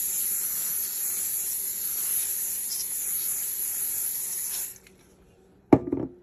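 Coconut-oil cooking spray hissing steadily as it coats pieces of chicken of the woods mushroom on parchment paper. The spray stops abruptly near the end, and a brief knock follows.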